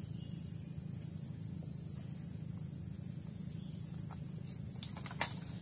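Insects droning steadily on one high pitch over a low background rumble, with a few sharp clicks near the end.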